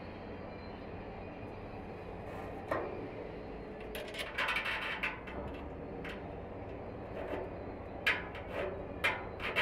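Hand work inside a steel barrel: a single click, then a short stretch of scraping metal, and near the end a run of quick scratching strokes about two a second, over a steady low background rumble.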